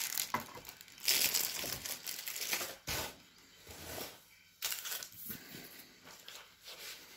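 A thin plastic bag holding a remote control crinkles and rustles as it is handled and put down on cardboard packaging. The rustling comes in bursts, the longest about a second in and a shorter one around five seconds.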